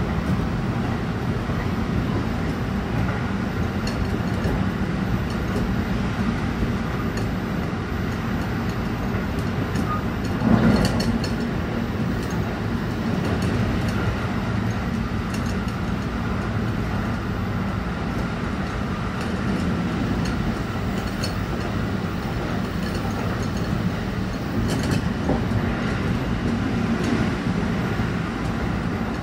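Interior noise of a JR Kobe Line Special Rapid electric train running at speed: a steady rumble of wheels on rail, with a brief louder burst about ten seconds in.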